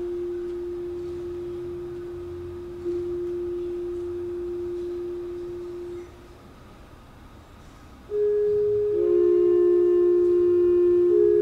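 Concert band wind instruments holding soft, sustained pure-toned notes. One held note ends about six seconds in, and after a short hush new notes enter one after another from about eight seconds in, building a chord.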